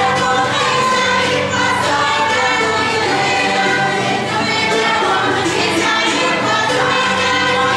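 A group of voices singing together in chorus, steady and loud, with no break.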